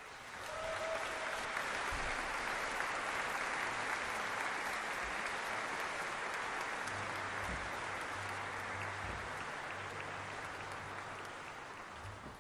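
Audience applauding, swelling in the first second or so after the music ends and slowly dying away near the end.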